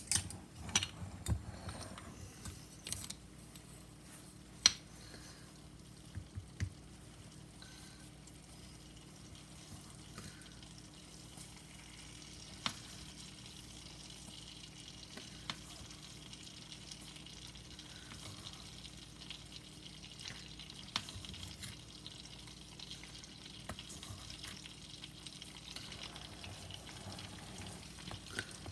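Melted butter sizzling faintly in a frying pan as sugar is spooned in from a canister, with a few sharp taps and clinks of the spoon against canister and pan in the first several seconds. The sizzle settles into a steadier, soft hiss from about twelve seconds in.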